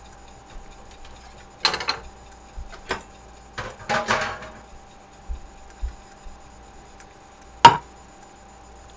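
A spoon knocking and scraping against a glass baking dish while stirring cooked egg noodles: a few scattered clicks and scrapes, with one sharp knock, the loudest, near the end.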